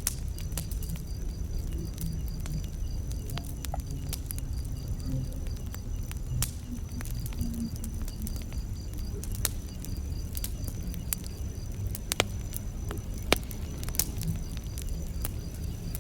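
Campfire crackling: irregular sharp snaps and pops over a low steady rumble of burning wood, with a few louder pops in the second half. Crickets chirp steadily behind it in a high, evenly pulsing trill.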